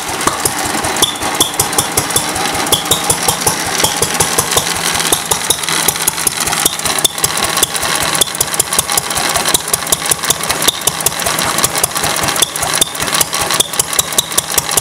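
Fairbanks-Morse ZC-52 3 hp throttle-governed single-cylinder oil field engine running steadily at its governed speed, firing on every cycle. Each stroke is a sharp beat, coming in a quick, even rhythm.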